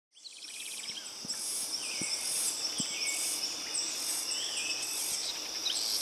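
Amazon rainforest ambience: a dense chorus of insects trilling in a steady high layer, with pulsed trills repeating and birds chirping and calling among them. It fades in at the start.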